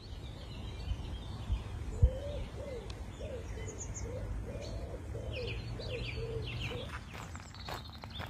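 Woodland birds calling: a low cooing call repeated several times, with high chirps from small birds over it, above a faint low rumble. Footsteps on a gravel path begin near the end.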